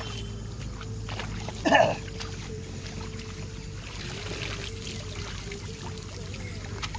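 Water splashing and dripping as rice seedlings are pulled from a flooded paddy nursery and bundled, over a steady low hum. One short loud sound comes a little under two seconds in.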